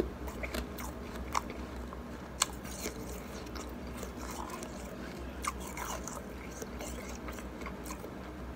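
Shaved ice being bitten and chewed: a scattered run of sharp crunches, the sharpest about one and a half and two and a half seconds in.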